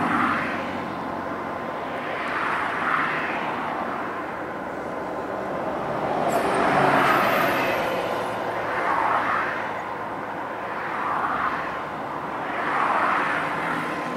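Cessna 208B Grand Caravan's single turboprop engine and propeller heard at a distance, a drone that swells and fades every two seconds or so over a thin steady whine.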